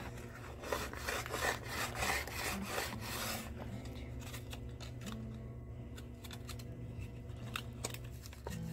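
A thin clear plastic bottle wing rubbed back and forth against a rough concrete wall used as sandpaper. Scratchy rasping strokes come in a run during the first three seconds or so, then give way to softer rubbing with scattered sharp clicks of the plastic.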